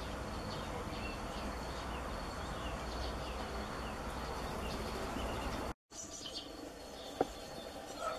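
Outdoor background of small birds chirping and singing over a steady low noise. The sound cuts out completely for a moment shortly before six seconds, then comes back quieter with more chirps and a single sharp tap about seven seconds in.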